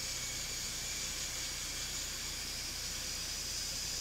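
Airbus A400M Atlas's turboprop engines running on the ground with the propellers turning: a steady hiss with a high, even whine.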